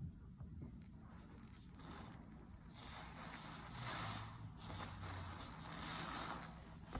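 Orange sponge squeezed and squished in a sink full of dish-soap lather, giving wet squelching and fizzing foam noise. It is soft at first and comes in a few louder squeezes from about three seconds in.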